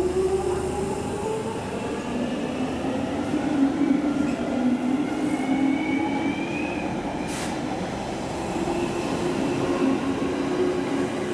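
London Underground 1996-stock Jubilee line train pulling out of the platform and accelerating away. Its traction motors whine in several tones that slowly rise in pitch over a steady rumble of wheels on rail. There is one sharp click about seven seconds in.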